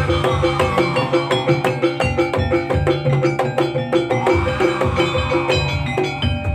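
Jaranan gamelan music: drums and tuned metal gong-chime percussion playing a fast, even beat, with a melody line weaving above.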